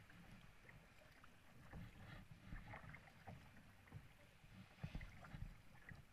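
Faint sounds of a kayak being paddled on calm sea: small splashes and drips from the paddle and water lapping at the hull, with a low rumble underneath.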